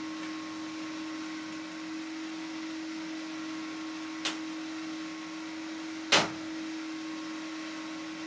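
A steady machine hum with a constant low tone, broken by two sharp clicks about two seconds apart, the second louder.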